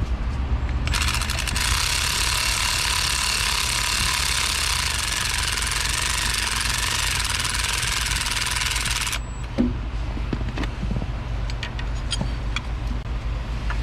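A loud, steady hiss starts about a second in and cuts off abruptly some eight seconds later, over a constant low hum; a few light metallic clicks and taps follow.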